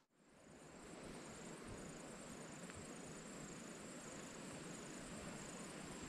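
Quiet rainforest ambience: a steady soft hiss with a high, thin insect chirp repeating about twice a second. It fades in from silence over the first second.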